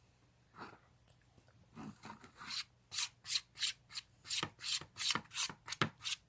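Clear glue being stirred in a bowl, the utensil scraping round the bowl in quick repeated strokes, about three a second, starting a couple of seconds in after a few fainter strokes.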